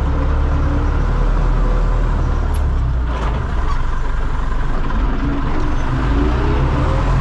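Belarus (MTZ) tractor's diesel engine running steadily as the tractor drives slowly, heard from inside the cab.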